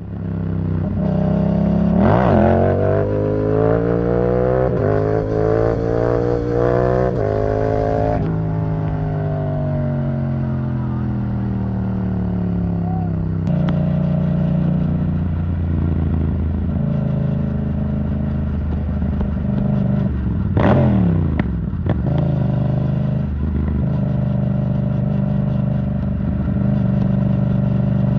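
Yamaha MT-07's parallel-twin engine through an Arrow Thunder titanium exhaust, accelerating hard up through the gears with a short break at each shift in the first eight seconds, then rolling off as the revs fall. It then cruises at steady revs, with one quick sharp rise and fall in revs about twenty seconds in.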